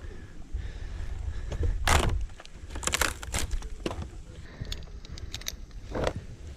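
Tree-climbing gear clinking and rattling, with scraping against the dead elm's trunk as a climber works his way up on the rope: a run of sharp clicks and scrapes, the loudest about two, three and six seconds in, over a steady low rumble.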